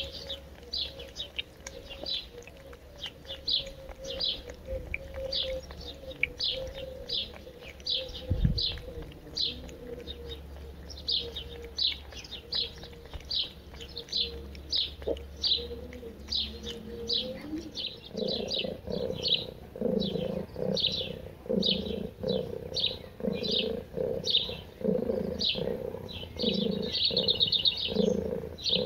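Small songbirds chirping over and over, about two sharp chirps a second, with a brief rapid trill near the end. About two-thirds of the way in, a lower pulsing cooing joins, typical of a pigeon or dove.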